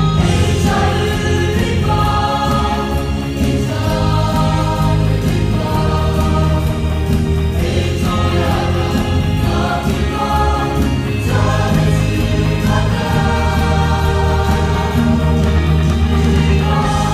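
Mixed choir of women's and men's voices singing a gospel song in parts, the notes held and changing about every second.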